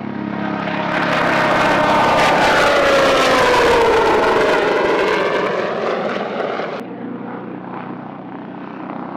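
Sikorsky S-97 Raider compound helicopter flying past, its rotor and pusher-propeller tone falling in pitch as it goes by. About seven seconds in, the sound cuts suddenly to a quieter, duller aircraft noise.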